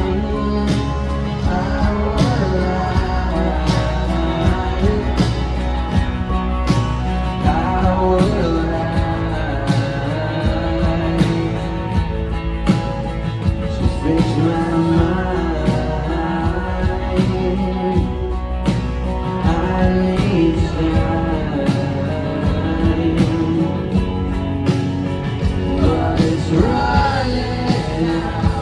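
Live rock band playing, with a steady drum beat and a singing voice.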